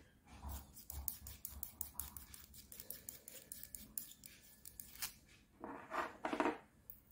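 Small metal parts of an aluminium TPMS valve stem handled in the fingers: a fast run of faint clicks and ticks as the hex nut is worked along the threaded shank. About six seconds in comes a louder scraping clatter.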